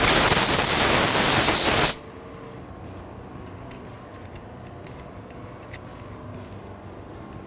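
A blast of compressed air from a shop air blow gun, about two seconds long and cutting off sharply, blowing plastic particles from the broken steering coupler off the steering motor's metal coupler hub. After it comes faint light scraping and ticking of a metal pick on the hub.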